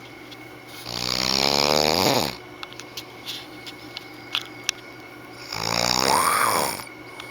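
A sleeping man snoring, two long pitched snores about four and a half seconds apart, each drawn out over more than a second, with a few small clicks between them. The snoring is blamed on his congested sinuses.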